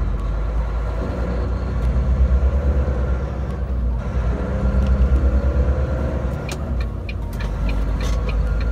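Semi truck's diesel engine heard from inside the cab as it accelerates onto a highway: a deep steady rumble whose pitch climbs, drops once about four seconds in as it shifts up a gear, then climbs again. A few light ticks near the end.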